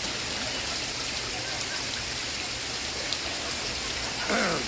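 Steady rain falling, an even hiss. Near the end a brief voice glides down in pitch underneath it.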